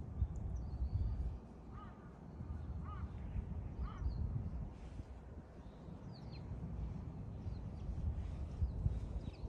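A crow cawing three times about a second apart, with a few faint high bird chirps, over a steady low rumble.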